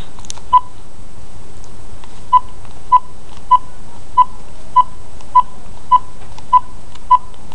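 Phone keypad beeping as a number is dialled: about ten short, evenly spaced beeps, a lone one near the start and then a run of roughly one every 0.6 seconds.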